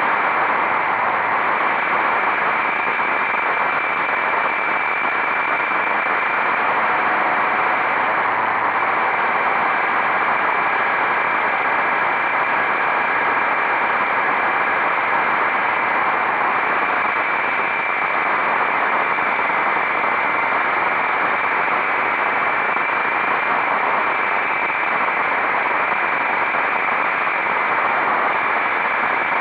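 Motorcycle running at a steady speed, its engine note held under a loud, even rush of riding noise.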